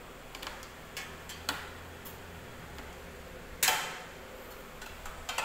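Light clicks and taps from hands handling the exposed parts of an open microwave oven, with one sharper knock about three and a half seconds in, over a faint low hum.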